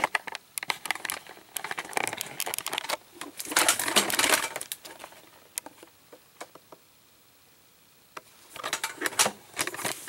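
Handling noise of a handheld video camera being fitted onto a tripod: irregular clicks, knocks and scraping, with a rustling stretch about four seconds in, a pause, then more clicks near the end.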